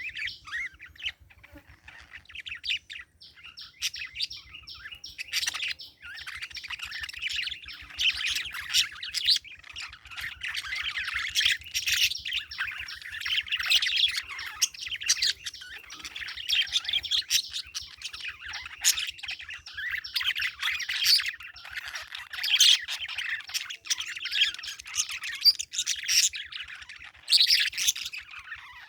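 Parakeets chirping and twittering in a dense, continuous stream of quick, high chirps.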